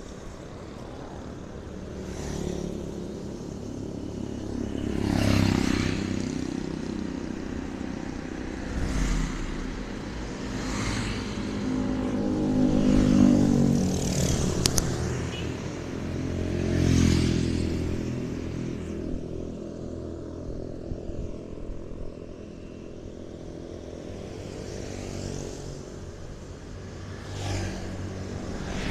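Street traffic: cars and motorcycles passing one after another, each engine swelling and fading, over a steady hum of running engines.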